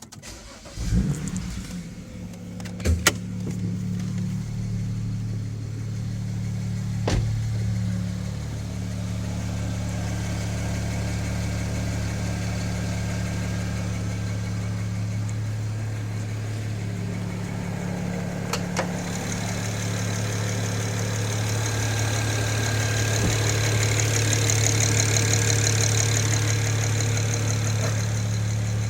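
BMW N54 twin-turbo inline-six engine starting about a second in and settling to a steady idle, with a few sharp clicks and, in the later part, a fast high-pitched ticking. The ticking is the unexplained noise the owner is trying to trace.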